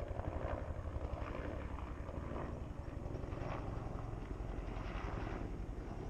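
Wind buffeting an action camera's microphone with a steady fluttering rumble, and footsteps crunching on a stony trail roughly once a second.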